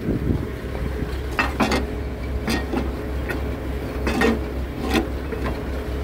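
Several sharp metal clanks and knocks from a sheet-steel grain auger hopper being shifted and handled, over a steady low machine drone.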